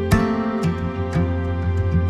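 Background music: soft, gentle instrumental music with plucked notes over sustained tones.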